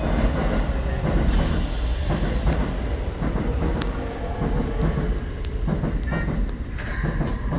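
Keikyu New 1000 series electric train running, heard from inside the car: a steady low rumble of wheels on rail with sharp clicks now and then. Over it is a thin high whine from the Mitsubishi IGBT VVVF traction inverter and motors, one tone sliding down in pitch about a second in.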